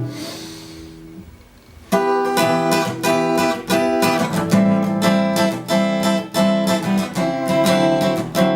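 Background music on acoustic guitar: a chord fades out, there is a short near-quiet pause, and about two seconds in steady rhythmic strumming begins and carries on.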